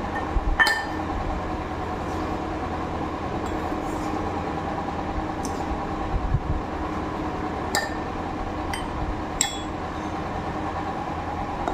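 A metal spoon stirring and scraping ground spice in a small steel bowl, with a few sharp clinks of the spoon against the bowl and the glass jar, over a steady background hum.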